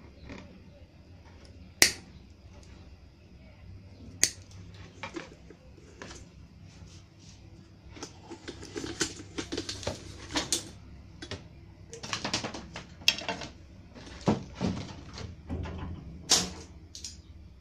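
Red-handled combination pliers cutting and working wires loose from a computer power supply: a few sharp snaps spread through, with bouts of clicking and rustling of the wire bundle in between.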